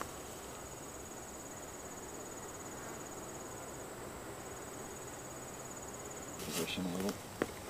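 Insect trilling steadily at a high pitch in a fine, fast pulse, breaking off briefly about four seconds in. Near the end come a few short rustling and handling noises.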